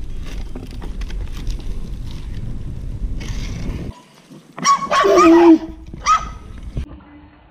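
Inline skate wheels rolling steadily on asphalt. After a cut, a loud conch shell blast of just under a second with a wavering pitch, then a shorter second call about a second later and a faint tail of the tone, blown to scare off dogs behind a fence.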